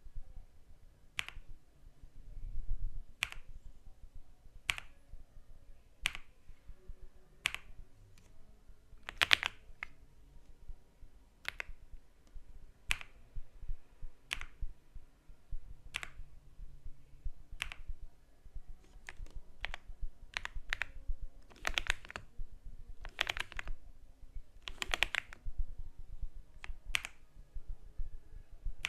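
Keyboard keys pressed one at a time, slowly: a sharp clack about every second or second and a half, with a few heavier, doubled strokes near the middle and toward the end.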